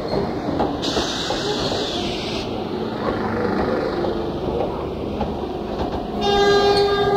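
Model trains running on layout track: a steady rumble and clatter of wheels and motors. About a second in, a hiss lasts a second and a half. About six seconds in, a loud pitched horn tone comes in.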